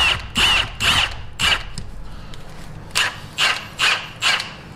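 Impact wrench fired in short bursts, about two a second: four bursts, a pause, then four more. It is pulling a new wheel stud into the hub through a spare lug nut. The stud stops drawing in because the lug nut bottoms out on the stud's threads before the stud is seated.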